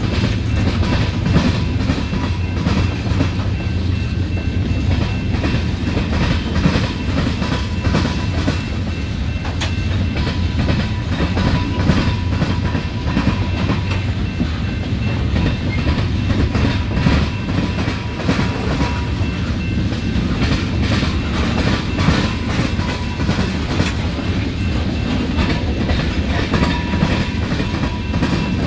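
Freight train's open-top hopper cars rolling past at close range: a steady deep rumble with continuous clattering of steel wheels over the track, and a faint thin squeal that comes and goes.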